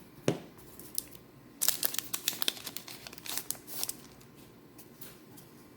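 Foil trading-card booster pack being torn open and crinkled, in bursts of crackling, with a soft thump just after the start; the crackling dies down in the last couple of seconds.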